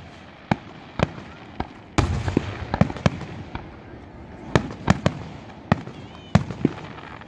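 Aerial fireworks shells bursting in irregular quick succession: about a dozen sharp bangs. The loudest comes about two seconds in, with a rumble trailing after it.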